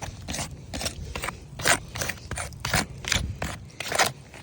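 A series of short, irregular scraping strokes, like chalk or a marker being dragged across gritty asphalt roof shingles to mark them.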